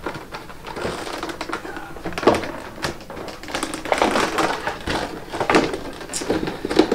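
Rigid plastic clamshell packaging being opened and handled: irregular crackles, clicks and knocks as the electric fence charger is lifted out of it.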